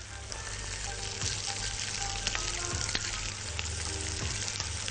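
Chopped onion, carrot and herbs sizzling as they fry in a pot: a steady hiss with scattered small ticks.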